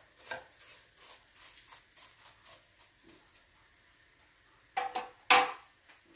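A wooden spoon stirring and scraping toasted vermicelli in butter in a stainless steel pot: light, irregular scrapes and taps. About five seconds in come two sharp knocks and then a loud clank with a short metallic ring.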